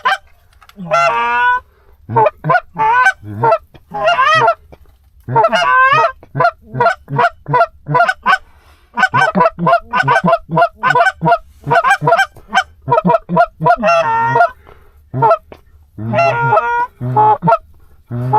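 Canada goose honks and clucks in a rapid, loud series, two or three calls a second, with a few longer drawn-out honks.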